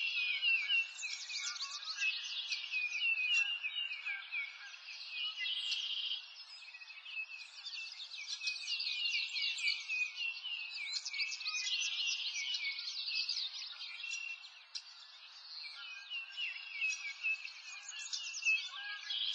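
Songbirds chirping and singing together, a dense stream of quick high overlapping chirps that thins out briefly about three quarters of the way through.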